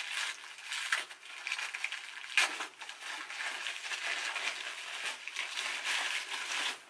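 White wrapping crinkling and rustling as it is handled and pulled off a handbag chain strap, with a sharp click about two and a half seconds in.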